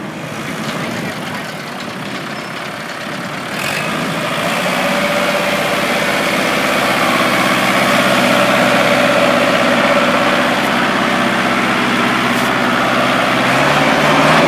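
Kubota L5018 tractor's 50 hp diesel engine running steadily at idle, growing louder about four seconds in.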